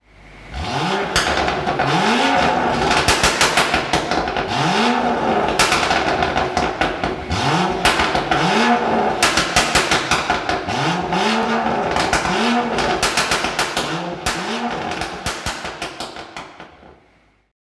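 BMW M235i's 3.0-litre N55 twin-scroll turbocharged straight-six revved in about ten quick throttle blips. Each blip is followed by rapid pops and crackles on the overrun from its Stage 2 remap's pop/crackle overrun map. The sound fades out near the end.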